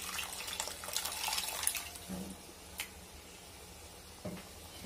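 Soaked tamarind pulp squeezed by hand over a pot of curry, its juice splashing and dripping into the liquid for about the first two seconds. A single click near three seconds, and a soft knock near the end.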